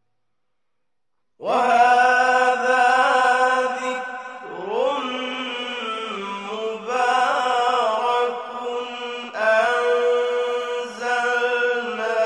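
About a second and a half of silence, then a man's voice chanting Quran in the melodic style, in several long phrases of held, ornamented notes that bend and slide in pitch.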